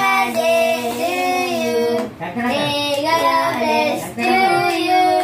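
Children singing a birthday song together around a cake, clapping along.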